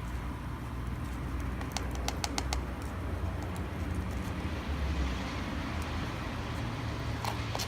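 Campfire burning with sharp crackling pops, a quick cluster about two seconds in and more near the end, over a low steady rumble.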